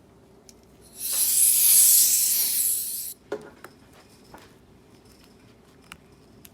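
A steady hiss of air or spray lasting about two seconds, starting about a second in and cutting off suddenly, followed by a few light clicks.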